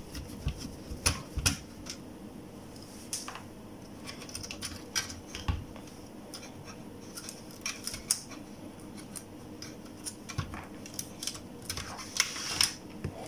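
Scattered small clicks and taps of a screwdriver and fingers on a satellite receiver's sheet-metal case and circuit board, as the power supply board is unscrewed and lifted out. A quick cluster of clicks comes near the end.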